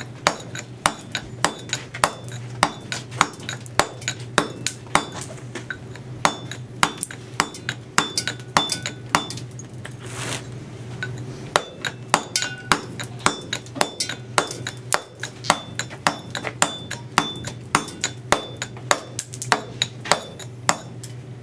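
Steel mason's chisel being struck in a quick, even run of blows, each with a sharp metallic clink, as it cuts a rough draft along the chamfer line of a stone block. The blows pause briefly just before halfway.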